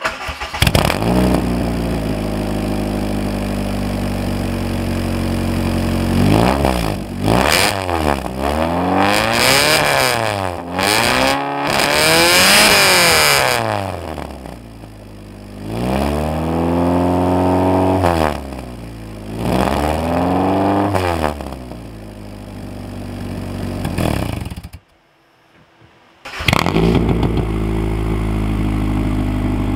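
Honda Civic wagon's B-series four-cylinder engine running through a straight-pipe exhaust muffled by a steel Sapporo beer can slipped over the tip: steady idle, then about seven revs that rise and fall in pitch, the highest held briefly about halfway. After a short break near the end, the engine runs again through the bare straight pipe without the can.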